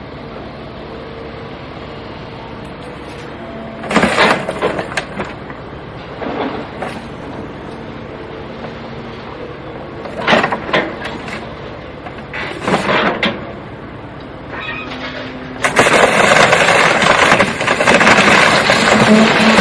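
Steady vehicle running hum broken by a few sharp knocks or bangs, then a loud, sustained, rough noise for the last few seconds, typical of crash footage with its original sound.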